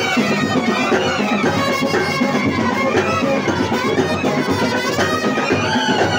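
Brass street band playing: trumpets carry a wavering, bending melody over steadily beating bass drums and snare drums.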